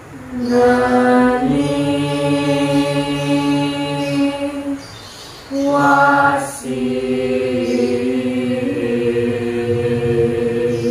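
A mixed group of men's and women's voices singing Javanese tembang macapat Pangkur unaccompanied, in long held notes with slow ornamented turns. The singing breaks off for a breath about five seconds in, then resumes.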